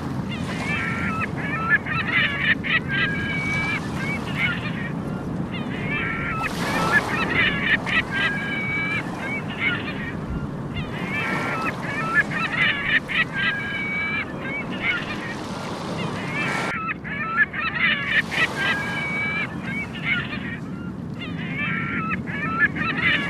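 Seagulls calling in repeated bouts of rapid, harsh calls every few seconds, over the steady wash of surf on a beach.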